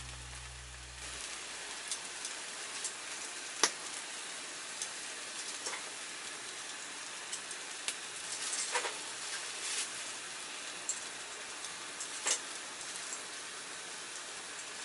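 Food sizzling and frying in a frying pan over a campfire: a steady hiss with scattered sharp pops and crackles, the loudest pop about three and a half seconds in.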